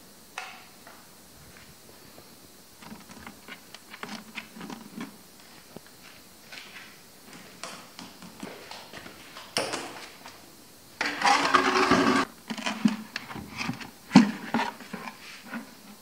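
Plastic washing-machine hoses being handled and moved about on a tiled floor: scattered clicks and knocks, a loud noisy burst lasting just over a second about eleven seconds in, and a sharp knock about fourteen seconds in.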